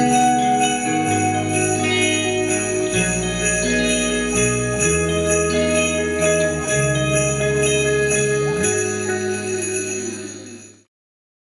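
Live rock band playing loudly, with a hand-held set of jingle bells shaken in a steady rhythm over sustained bass and guitar notes that change every second or two. The sound cuts off suddenly near the end.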